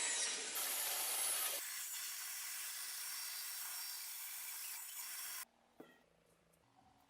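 Steady abrasive rubbing and scraping, spliced from a few short clips, that stops abruptly about five and a half seconds in.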